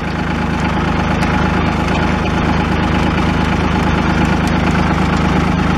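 A 1981 tractor's engine idling steadily.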